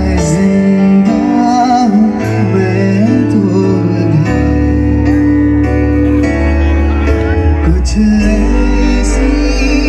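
Live band music amplified through a PA: a man sings a slow, wavering melody into a microphone over sustained chords, electric guitar and a steady bass.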